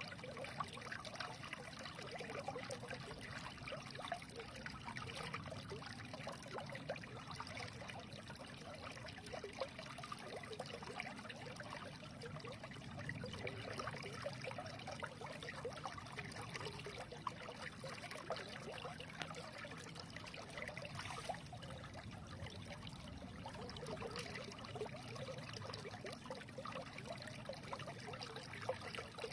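Small stream trickling and babbling over stones, a steady, unbroken flow with many small splashes.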